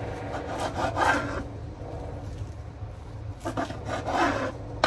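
Plastic cling film crinkling and rubbing as gloved hands handle a cut, cling-wrapped folded sushi, in two scratchy bursts: about a second in and again near the end.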